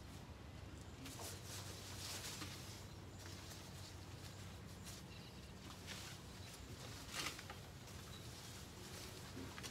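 Faint steady low hum with a few soft rustles and clicks, the plainest about two seconds in and again about seven seconds in.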